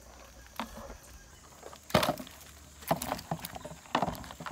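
Knocks and rattles as a wire-hooped crab net full of crabs is swung out of the water and set down in a plastic tub, with one loud knock about two seconds in and a cluster of smaller clatters after it.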